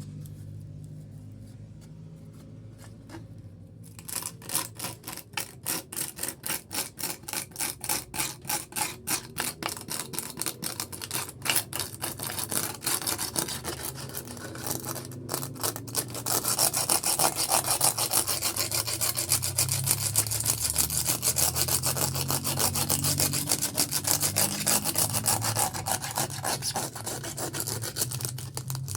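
Hand sanding of fiberglass in rhythmic back-and-forth rasping strokes. They start about four seconds in at two or three strokes a second, then turn faster and louder about halfway through.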